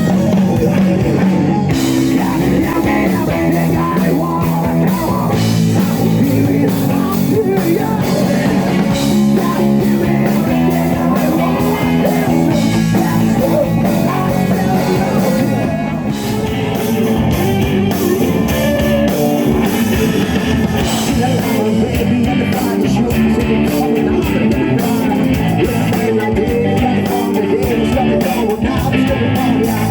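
Rock music with guitar and drums playing steadily, starting right after a brief silence.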